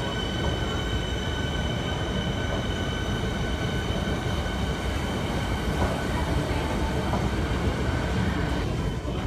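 Siemens Nexas electric suburban train running out of the station: a low rumble of wheels on the rails with a steady high-pitched whine, which fades near the end.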